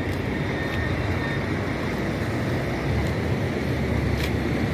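Street traffic noise: a steady low rumble of vehicles on the road, with no single engine standing out.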